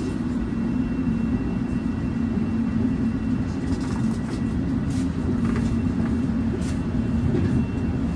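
Toronto subway train on TTC Line 1 running, heard from inside the car: a steady low rumble with a faint steady whine above it.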